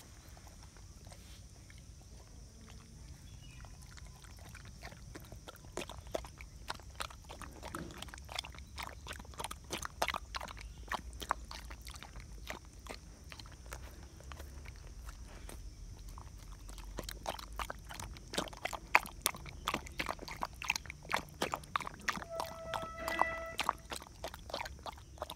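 Mudhol hound lapping thin ragi malt porridge from a steel bowl: quick wet tongue laps and slurps, sparse at first, then coming several a second from about six seconds in. A brief high tone sounds near the end.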